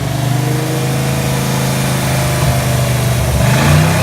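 Ford 5.0 V8 running at idle just after a head gasket job, rising briefly in pitch as it revs a little about three and a half seconds in. The timing is being checked, and the men say it needs redoing.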